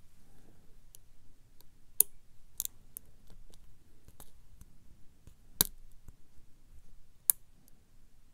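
Lock pick and tension wrench working the pin tumblers of a brass pin-tumbler cylinder lock: scattered sharp metallic clicks, the loudest about two seconds in and another strong one about five and a half seconds in, with fainter ticks between.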